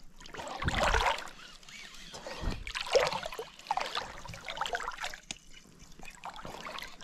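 Water trickling and splashing around a small fishing boat, in irregular swells.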